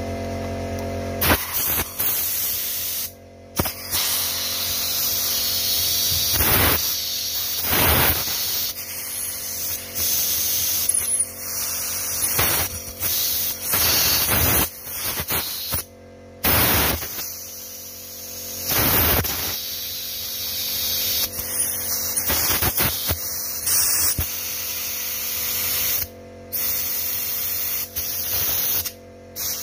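Compressed air hissing in repeated blasts of uneven length as an air nozzle blows out the fluid ports of a brake booster and ABS unit; a steady hum stops about a second in, just as the blasts begin.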